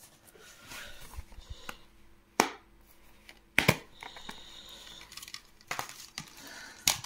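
Crinkling and tearing of packaging being handled, with two sharp clicks about a second apart midway.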